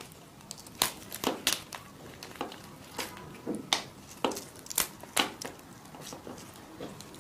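Shell of a large prawn cracking and crinkling as it is peeled off by hand, heard as a string of irregular sharp snaps.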